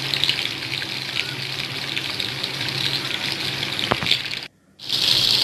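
Marinated fish pieces deep-frying in hot oil in a pan, a steady sizzle full of fine crackles. Near the end the sound cuts out for a moment, then the sizzle comes back louder.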